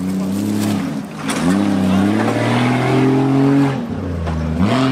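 Off-road 4x4 vehicle engine revving hard under load, its pitch rising and falling several times, with a long climb that drops off sharply near four seconds in.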